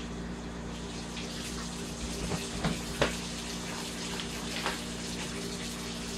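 Kitchen tap running into a sink in a steady rush of water. A few light knocks come around three seconds in and again a little later.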